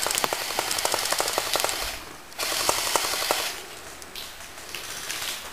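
Airsoft guns firing rapid bursts of shots, a fast clatter that breaks off briefly about two seconds in and grows sparser toward the end.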